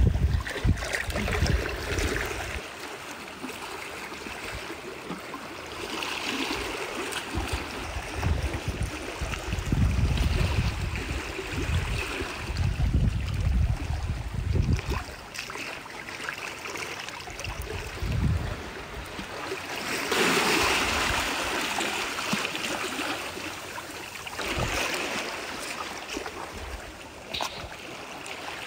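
Seawater washing and sloshing among shoreline rocks, swelling every few seconds, with gusts of wind rumbling on the microphone.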